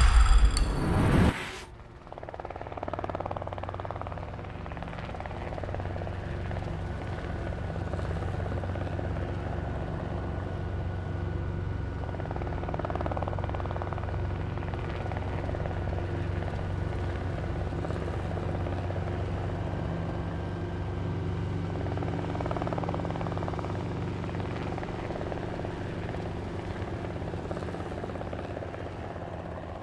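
A short loud sound-effect sting in the first second or so, then a steady low mechanical drone, like an engine running at a constant speed, with a faint even pulsing.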